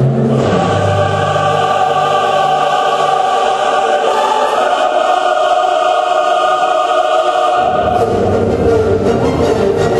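Music for a ballet routine, with long held chords. A little before the end a deeper part and a busier texture come in.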